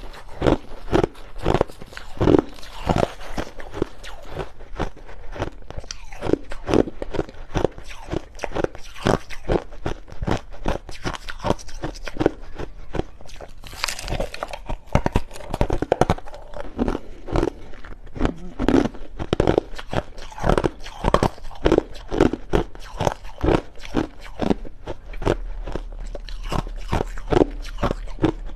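A person biting and chewing crushed ice close to the microphone: a dense, irregular run of sharp crunches and cracks.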